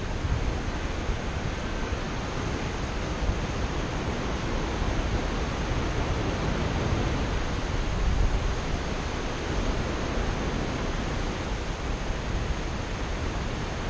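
Steady rush of wind over an action camera's microphone as a paraglider flies, a constant hiss with heavier buffeting low down.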